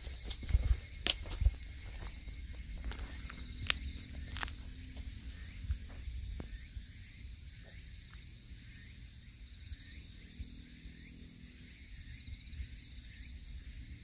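Scattered footsteps and scuffs on a woodland path for the first several seconds, then steady outdoor ambience with a high insect hum and faint repeated chirps.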